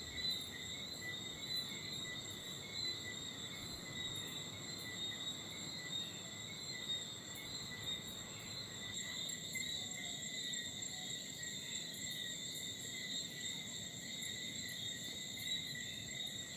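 Night insects, likely crickets, chirring in a steady, unbroken high-pitched chorus.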